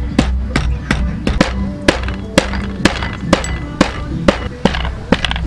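Wooden pestle pounding in a wooden mortar, a dull knock about twice a second, over background music.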